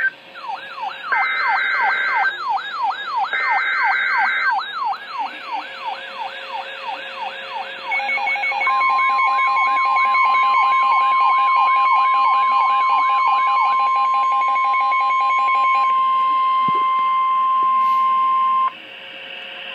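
Emergency Alert System warning tones: the screeching data bursts of a SAME header, then a rapidly wavering siren-like alarm sweeping up and down. The alarm gives way to a long steady alarm tone with fast pulsed beeping over it, which cuts off suddenly near the end.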